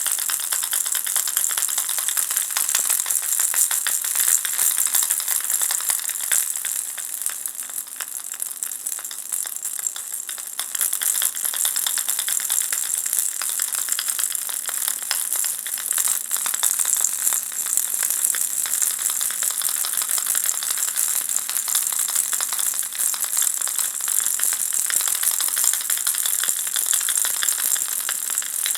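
Ball-shaped baby rattle being shaken continuously: a dense, high-pitched shimmering rattle. It eases off slightly about eight seconds in, then picks up again.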